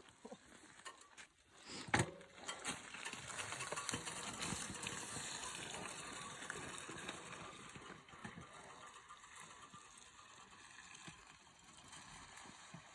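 Electric fat-tyre bike riding off over a wet gravel road: tyres crunching on gravel and splashing through a puddle, fading as it moves away. A sharp click about two seconds in.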